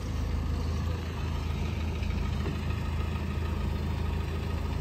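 Renault Duster SUV's engine running as the car rolls slowly by, a steady low rumble.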